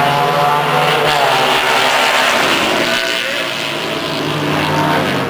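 Vintage racing motorcycle engines running hard at high revs on the track, their pitch rising and falling as the bikes accelerate and go by.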